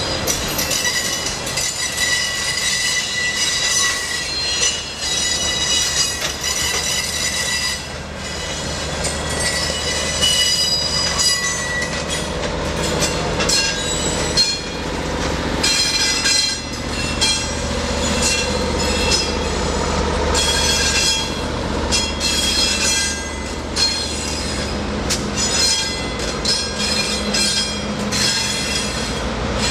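Passenger train creeping around a tight curve: the wheels of the passenger cars squeal against the rails in several high tones, with scattered clicks from rail joints. From about twelve seconds in, the low steady run of the Norfolk Southern EMD F-unit diesel locomotives passing close by joins the squeal.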